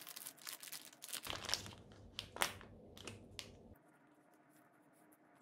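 Thin plastic food wrapper crinkling as it is torn open and pulled back from a packaged sandwich bread. The crinkling is dense at first, then comes as a few sharp separate crackles, the loudest about two and a half seconds in. The last second or so is only soft handling.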